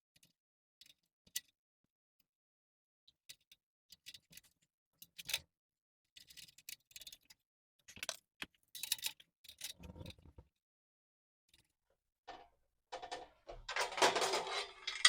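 Scattered metallic clicks and clinks of steel bicycle-rack parts and tools being handled during assembly, growing into a busier clatter near the end.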